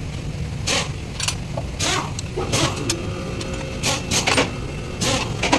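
Steady low engine rumble, with short sharp hisses about once a second at irregular intervals.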